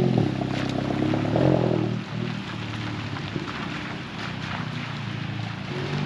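Volkswagen Golf GTI (Mk7) with its turbocharged four-cylinder engine driving past on a wet road. The engine note rises as it accelerates over the first two seconds, then cuts away. Steady tyre hiss on the wet road remains after that.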